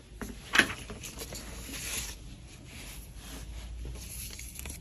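Printed paper sheets being handled and rustling, with one sharp knock about half a second in, over a low steady hum.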